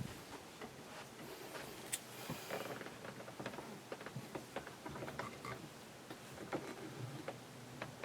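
Irregular light clicks and taps, a few every second.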